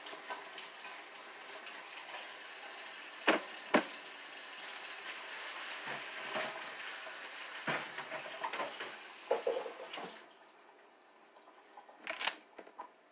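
Kitchen tap running into the sink as potatoes are rinsed, with a few sharp knocks of handling along the way. The water shuts off about ten seconds in, and a couple of knocks follow near the end.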